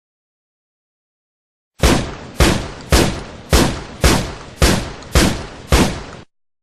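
Shotgun sound effect: eight shots fired in quick succession, about two a second, each with a short decaying boom, after a pause of nearly two seconds.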